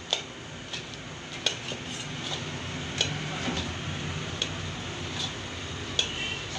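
Peeled peanuts being stirred and tossed through hot sugar-and-jaggery syrup in a large metal kadhai: a steady scraping, rustling sound, with irregular sharp knocks about once a second as the stirrer hits the pan.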